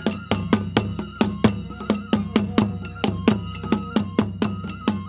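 Live Japanese festival music: taiko drums on stands struck in a quick, steady beat, with a bamboo flute playing a melody that steps up and down above the drums.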